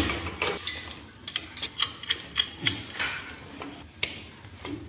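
Metal hand tools and pipe fittings clinking and knocking against each other in a quick, irregular run of sharp clicks.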